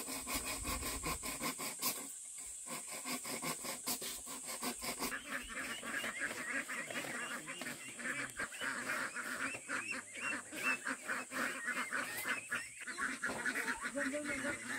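A flock of ducks calling: many short overlapping calls, getting busier from about a third of the way in, over a steady high-pitched hiss.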